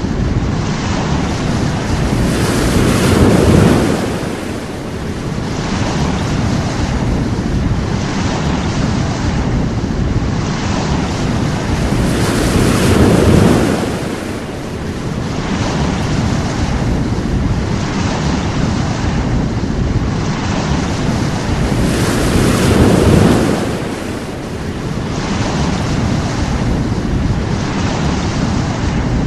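Sea waves breaking on a shore: a steady wash of surf that swells up and falls back about every ten seconds, three times.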